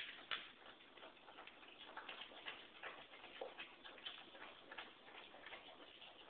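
A dog and a cat eating dry kibble from one shared bowl: faint, irregular crunching and clicking of the pellets, several clicks a second.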